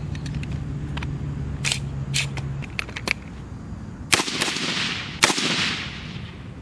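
Gunfire from AR-15 rifles: irregular single shots, several faint and a few sharper, the loudest about five seconds in and followed by a long rolling echo. A low steady hum runs under the first two and a half seconds.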